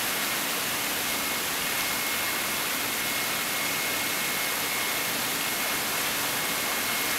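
Steady rushing of water from a swimming pool's wall spout and overflow gutter, with a faint, steady high whine running through it.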